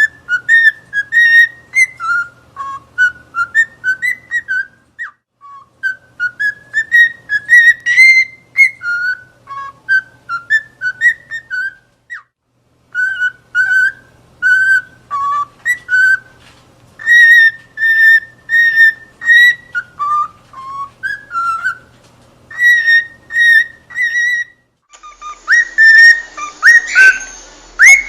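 Cockatiel whistling: runs of short, clear pitched notes that step up and down, in phrases broken by brief pauses. Near the end the whistling goes on over a background hiss.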